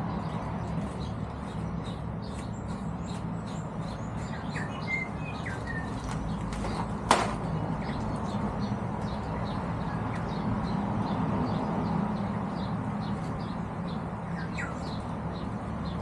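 Small birds chirping on and off over a steady low hum, with a single sharp knock about seven seconds in.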